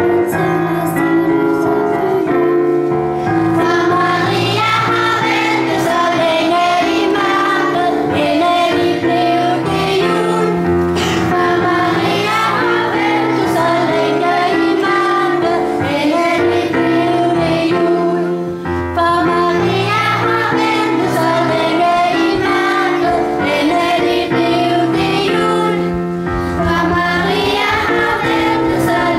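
A class of young children singing a song together with piano accompaniment. The piano plays alone for the first few seconds before the voices come in.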